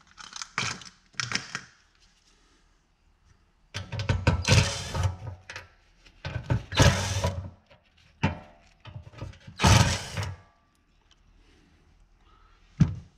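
Small cordless impact driver hammering in repeated bursts, two short ones at first and then several of about a second each, with quiet gaps between. It is backing out tight screws that hold a power quarter-window motor.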